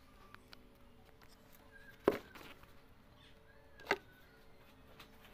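Two sharp knocks about two seconds apart, the first the louder.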